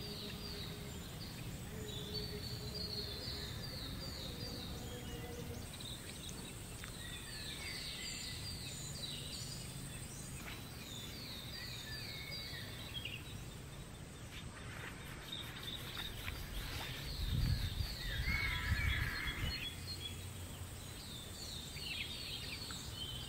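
Outdoor ambience by a rural stream. A bird repeats quick runs of high, downward-sliding notes. An insect's steady high whine runs for a few seconds early on, and there is a brief low rumble, like wind buffeting the microphone, about two-thirds through.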